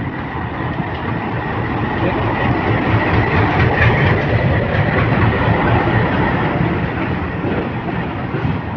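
Indian Railways WDM3A diesel-electric locomotive hauling a goods train past below. Its engine rumble and the wheels on the rails build to a peak about four seconds in, then slowly ease.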